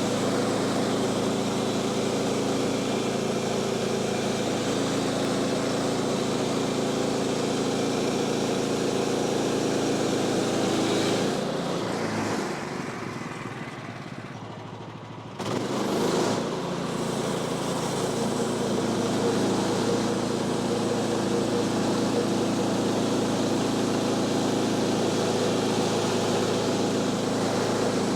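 Band sawmill's engine running steadily. About halfway through the sound fades for a few seconds, then comes back abruptly at full level.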